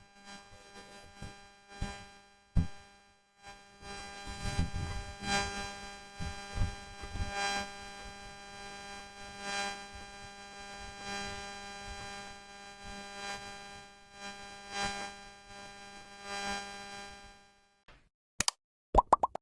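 A steady electrical hum with many overtones, with scattered light knocks and bumps over it. It stops shortly before the end, and a few sharp clicks follow.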